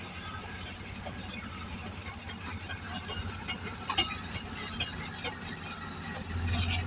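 Caterpillar D9R bulldozer running with a steady low drone, with scattered mechanical clicks and clanks, one sharp click about four seconds in. The engine grows louder near the end.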